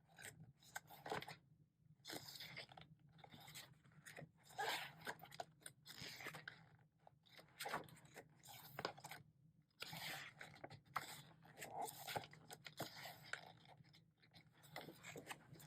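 Pages of an album photo book being turned and handled: faint, irregular paper rustling with soft taps.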